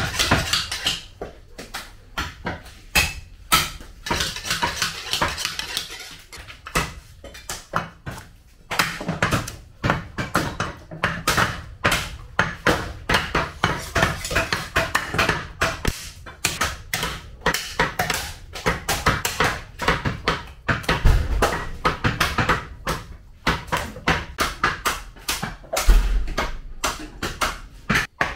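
Cleavers chopping mutton: sharp, irregular knocks, several a second, with a few heavier thuds in the second half.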